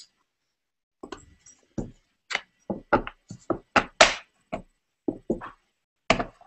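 A series of short knocks and clunks, about a dozen spread over five seconds, as sharpening stones and a plastic stone holder are handled and set down on a table.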